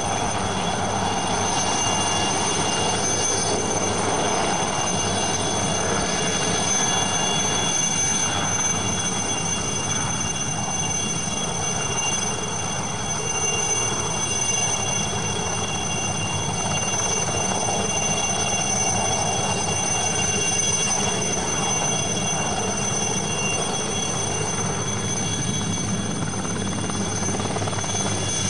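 Aérospatiale SA315B Lama helicopter running at flight power while it hovers low: a steady high-pitched whine from its Turbomeca Artouste turboshaft over a low drone from the rotor and drive, holding even throughout.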